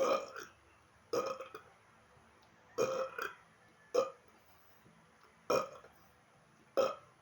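A man burping again and again: six short belches, about one to one and a half seconds apart.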